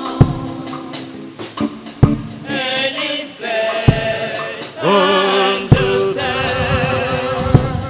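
A choir singing long, wavering notes over a drum beat that strikes about every two seconds.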